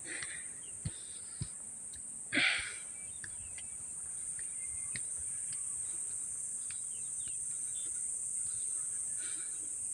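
Steady high-pitched drone of insects in forest, with a few faint taps and a brief rustle about two and a half seconds in.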